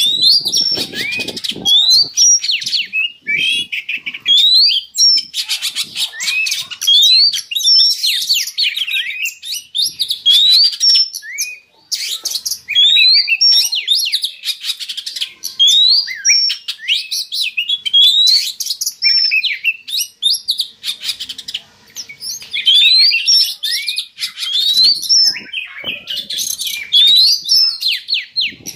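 Oriental magpie-robin (kacer) mating song: a dense, continuous run of quick rising whistles and chattering notes, with short breaks about twelve and twenty-two seconds in. It is the breeding-condition song that keepers play as a lure to bring a bird into breeding drive.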